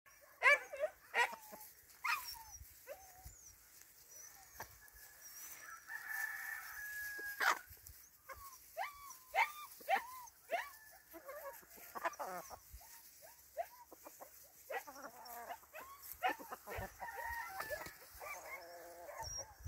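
Free-range chickens clucking and calling as they forage: many short, irregular calls, with one longer held call about six seconds in.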